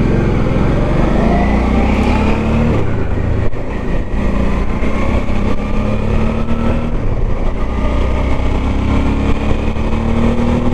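Motorcycle engine accelerating through the gears: the pitch climbs, drops at a shift about three seconds in, then climbs again twice more.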